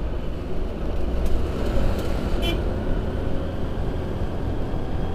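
Steady low rumble of a motor scooter in motion, heard from the rider's position: engine, wind and road noise together. A brief high chirp comes about two and a half seconds in.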